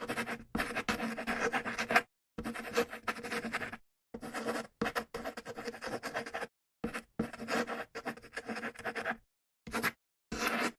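Writing on paper: scratchy strokes in about six short separate clips, each cut off into dead silence, with a faint steady hum under the scratching.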